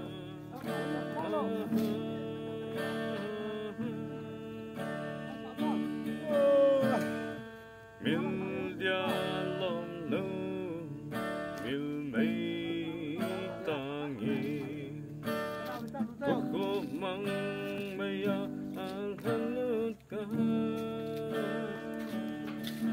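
A song: a voice singing over strummed acoustic guitar.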